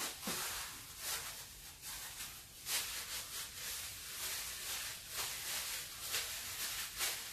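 Gloved hands rubbing seasoning into meat: irregular soft rustling swishes of the glove on the meat, one sharper near the middle.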